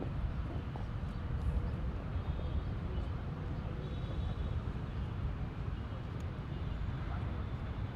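Steady outdoor background noise: a low rumble with a hiss over it.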